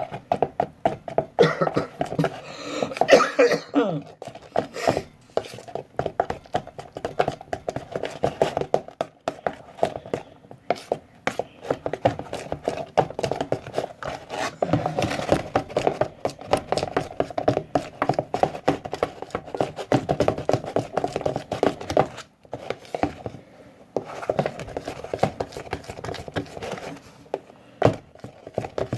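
A utensil stirring and scraping a shaving-cream slime mixture in a bowl: many quick, irregular clicks and scrapes against the bowl.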